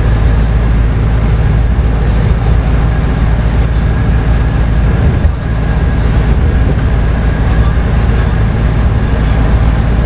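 Steady low rumble of road and engine noise heard from inside a moving road vehicle, with a brief dip about five seconds in.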